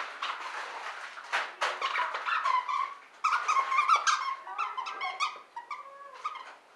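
The squeaker inside a plush fox dog toy squeaking again and again as a Basset Hound chews and presses on it, in irregular squeaks that bend in pitch, with chewing clicks between them.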